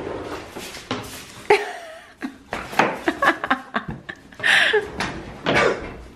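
Quiet laughter and chuckling, with scattered short knocks and clicks.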